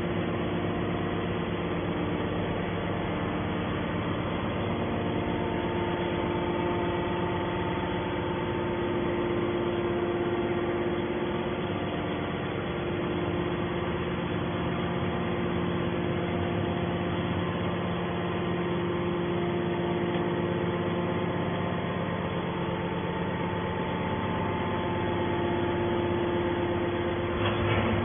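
Hydraulic scrap metal baler's power unit, its electric motor and pump running with a steady hum of several held tones that swell and fade a little. A short knock near the end.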